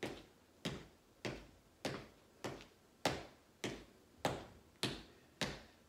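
Footsteps of a person marching in place in sneakers on a hardwood floor: about ten even thuds, a little under two a second.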